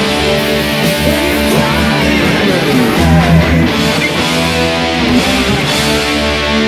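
Distorted electric guitar playing a lead line with bent and gliding notes, over a rock backing track with held bass notes.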